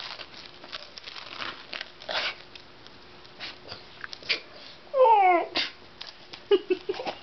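A woman's stifled laughter through a mouthful of cereal: short breathy puffs, and a loud squeal falling in pitch about five seconds in.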